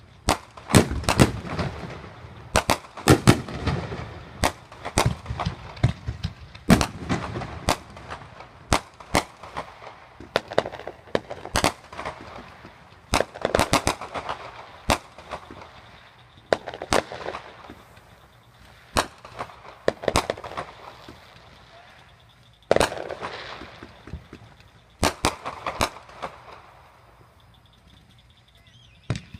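Fireworks going off: an irregular string of sharp bangs, some followed by a crackling tail, thinning out over the last few seconds.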